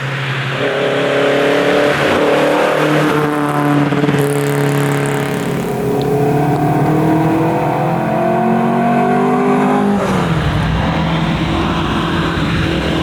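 Volvo 122S rally car's engine pulling hard, its pitch climbing slowly for about ten seconds. Near the end the pitch drops sharply at a gear change, then it pulls again.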